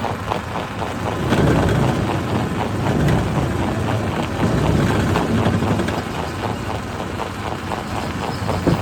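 Excavator-mounted hydraulic breaker hammering rock: a rapid, steady run of knocks over the excavator's diesel engine, growing louder about a second and a half in.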